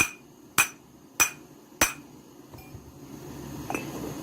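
A hammer striking the edge of a Jofemar vending-machine boiler: four sharp strikes in a steady rhythm about 0.6 s apart, then a lighter tap near the end. The warmed boiler half is being knocked flat so the gaps in its mating surface close.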